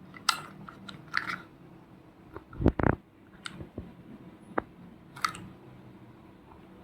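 Plastic toys and packaging being handled, giving scattered clicks and crinkles, with two dull thumps about three seconds in.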